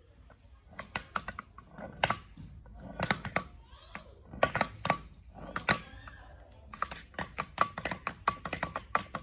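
Quick, irregular clicks and clacks from a restored parallel-shaft gear reducer as its universal-jointed shafts are turned back and forth by hand, starting about a second in and coming in runs with short pauses.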